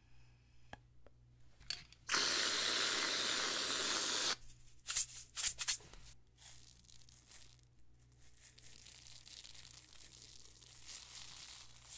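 Aerosol can of whipped cream spraying in one steady hiss for about two seconds, followed by a few sharp clicks. After that comes a faint, light rattle of sprinkles shaken from a small plastic shaker.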